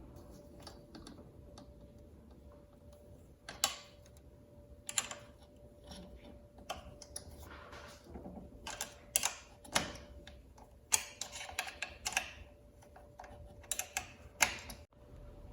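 Small wrench clicking and tapping as three screws are loosened and taken out of a garage door opener's drive unit, with irregular light clicks spread through, a few louder than the rest.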